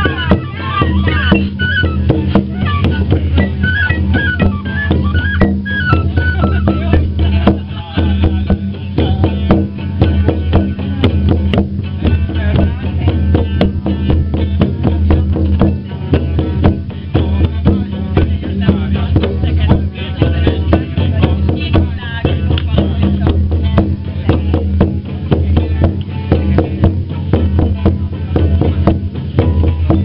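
Live folk music: a melody over a steady low drone, with a small pipe played by mouth among the instruments.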